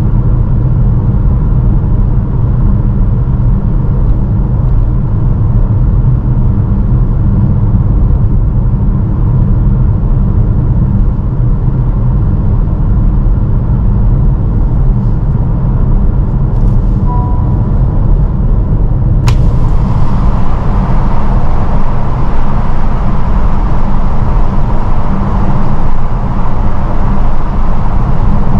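Steady road and wind noise of a 2022 Honda HR-V e:HEV hybrid on the move, a deep rumble from its Goodyear UltraGrip Ice 2 winter tyres, with a faint steady high whine. Two-thirds of the way through there is a single sharp click, after which the rushing hiss of wind gets louder and stays.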